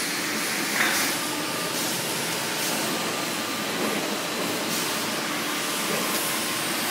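Steady machine noise of a hydraulic press brake running idle, an even hiss with a faint steady whine over it.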